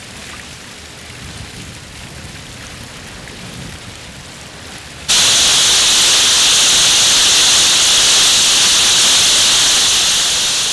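Water running down a tiled fountain wall into a pool. It is a soft, steady splashing at first, then about halfway through it turns much louder and hissier, heard through a paper dish sound collector's microphone and amplifier. It fades off near the end.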